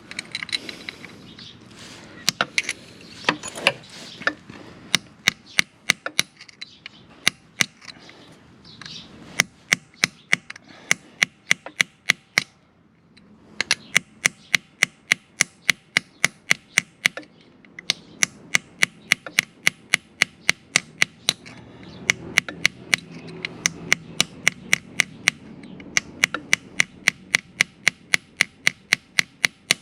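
Runs of sharp metallic clicks, about three a second with short pauses between runs, from a hand tool working on a motorcycle's oil drain bolt.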